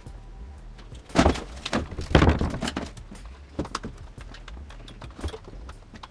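Thumps and knocks of equipment being moved about in a van: a loud knock about a second in, a longer heavy clatter just after two seconds, then several lighter single taps and clicks.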